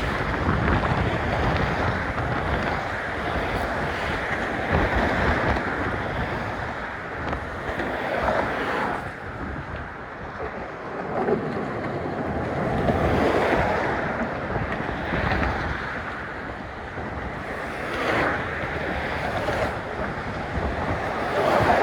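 Wind buffeting a cell phone's microphone through a sock over it, a steady rushing noise that swells and eases in gusts.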